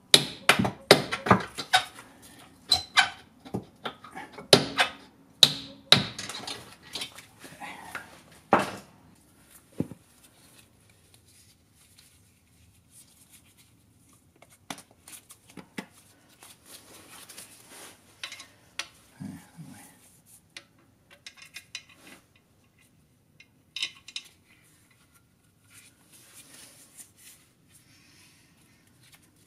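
Metal-on-metal clinks and knocks from hand tools working a stuck leaf-spring mounting bolt under a golf cart. They come quick and loud for the first several seconds, then turn sparse and quieter.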